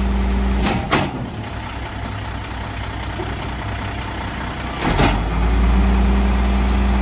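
Diesel engine of a 1996 Volvo WX garbage truck running steadily, with two short, sharp air hisses from the truck's air system, one about a second in and one about five seconds in. After the second hiss the engine runs louder and deeper.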